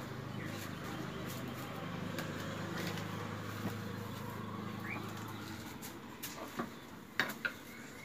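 A steady low engine hum that cuts off a little past halfway, with a short bird chirp and a few sharp knocks near the end.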